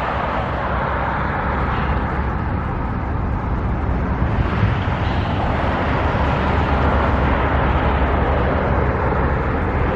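A steady outdoor vehicle rumble and hiss. It grows gradually louder through the middle, then eases a little near the end.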